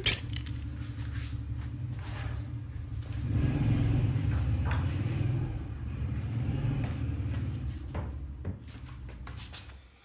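A low rumble that swells about three seconds in and slowly fades toward the end, with a few faint knocks.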